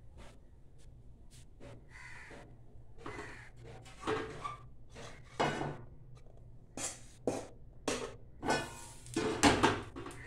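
Crows cawing: a run of about eight harsh caws in the second half, among light clinks of a metal pan and slotted spoon being handled.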